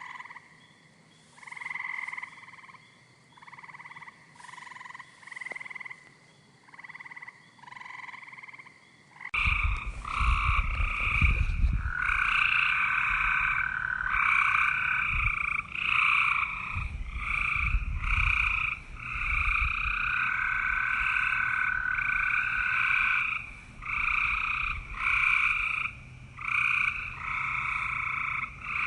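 Frogs croaking in repeated calls. At first single calls come about once a second; about nine seconds in the sound changes abruptly to louder, almost unbroken calling with a low rumble underneath.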